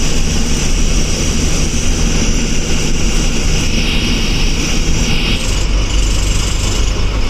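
Eicher bus engine running steadily under way, heard from inside the driver's cabin, with a constant low hum and road noise.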